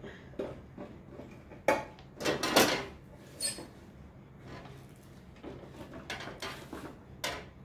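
Clear plastic drawers of a makeup organizer being slid out and handled: a few sharp plastic knocks and clacks, the loudest about two and a half seconds in, with quieter sliding and rubbing between.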